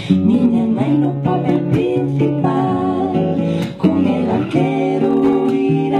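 Live Galician folk song: acoustic guitar strummed under several women's voices singing together in harmony.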